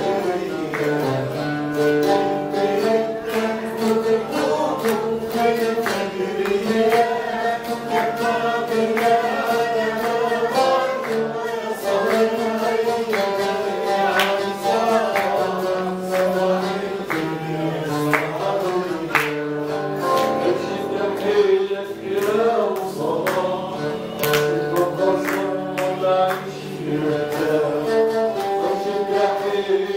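A man singing a song while accompanying himself on a small plucked string instrument, its sharp plucked notes sounding under the sung melody.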